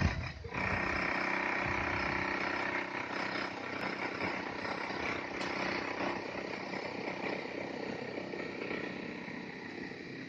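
A steady engine hum, the pitch holding level, over a haze of outdoor noise.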